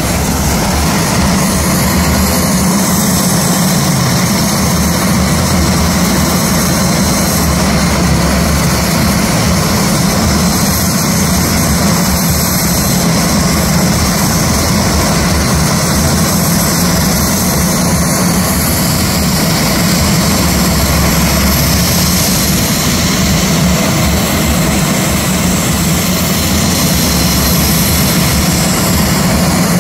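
Several Embraer A-29 Super Tucanos' Pratt & Whitney PT6A turboprop engines running on the ground, a steady propeller-and-turbine drone with a strong low hum that holds without change.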